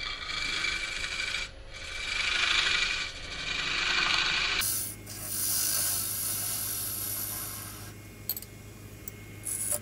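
Turning tool cutting a figured maple blank spinning on a wood lathe, a scraping cut over the lathe's hum. It swells and fades in three passes, turns higher and steadier about halfway through, then tails off near the end with a few light clicks.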